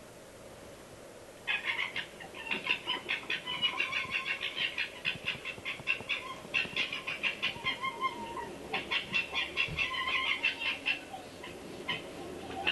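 Two foxes playing, making rapid chattering, pulsed calls in quick runs, with a short lull partway through. It is a field recording played back.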